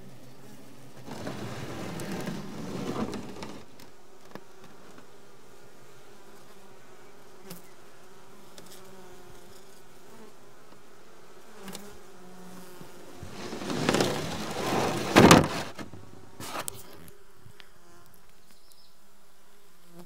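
Honeybee colony humming inside a frameless stacked-box hive, a steady buzz. It swells louder twice for a couple of seconds, the second time with a sharp knock in the middle.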